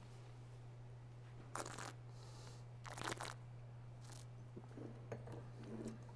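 Faint wine-tasting noises: two short noisy sounds of sipping and sniffing at wine glasses about a second and a half apart, then a faint click, over a low steady hum.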